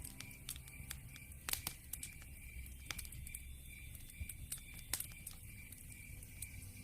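Wood fire in a fireplace crackling, with irregular sharp pops over a low rumble of the flames; the loudest pops come about a second and a half in and near five seconds in.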